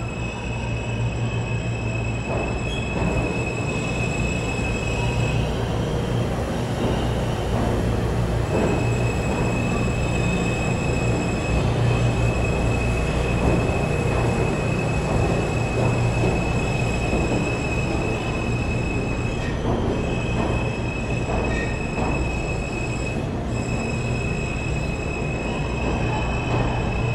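R160 subway cars rolling past along the platform, a steady low rumble with a high-pitched squeal from the wheels over it. The squeal breaks off briefly a few times.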